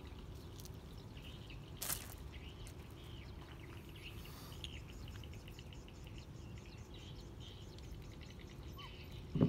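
Faint, scattered high-pitched chirps and squeaks over a steady low outdoor background noise, with a single sharp click about two seconds in.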